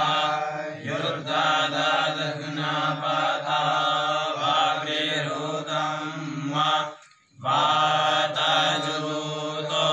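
Men chanting Sanskrit mantras together on a steady pitch, with a brief break for breath about seven seconds in.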